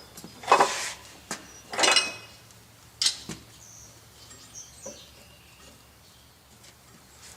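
Metal clanking as steel tools and bar stock knock together while hot steel is worked: three loud clanks, the second one ringing, followed by a few faint ticks.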